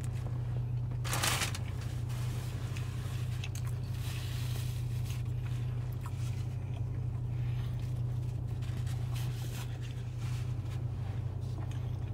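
Steady low hum inside a running car's cabin, with a short rustle of the paper sandwich wrapper about a second in and soft chewing noises as a barbecue sandwich is eaten.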